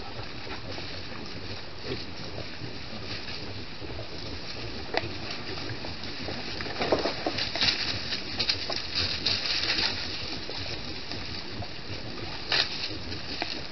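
A herd of white-lipped peccaries foraging in dry leaf litter: rustling and crunching with scattered sharp clicks and pig-like grunts, busiest in the middle, over a steady hiss.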